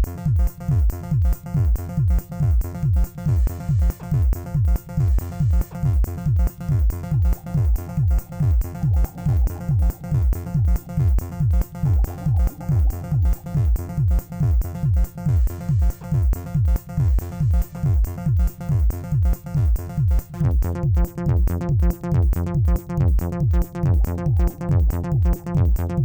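Electronic disco-style dance music: a steady kick drum at about two beats a second under synthesizer tones.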